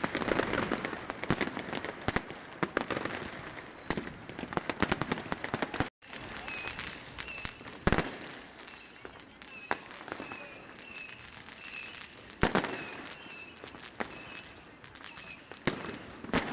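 New Year's Eve fireworks and firecrackers going off all around, many sharp irregular bangs and crackles, with the loudest single bangs about 8 and 12 seconds in. The sound drops out briefly about 6 seconds in.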